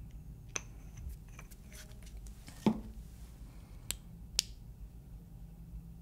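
Light handling noises at a fly-tying vise while a UV curing light is used: a few small clicks, one louder knock about two and a half seconds in, and two sharp clicks near the end, over a faint low steady hum.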